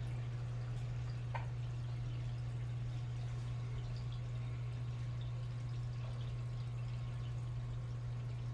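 A steady low hum, with a faint drip-like plink about a second and a half in and another near the end.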